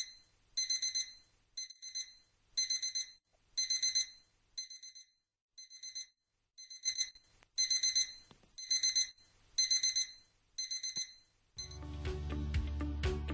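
Electronic alarm clock beeping, high-pitched, in quick bursts of several beeps about once a second. Near the end, loud music with heavy bass cuts in while the beeping goes on.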